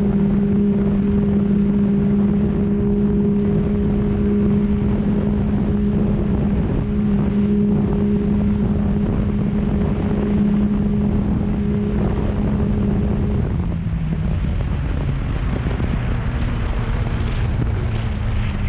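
Off-road race vehicle's engine held at high, steady revs at speed, over a loud rough rumble with wind on the microphone. About thirteen and a half seconds in, the engine note drops as the throttle comes off, and it runs lower to the end.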